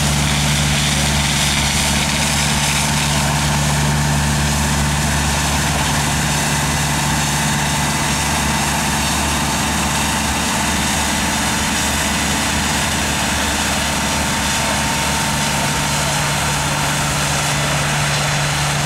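A Humvee-mounted compressed air foam system spraying: a steady engine hum under the continuous hiss of the foam stream.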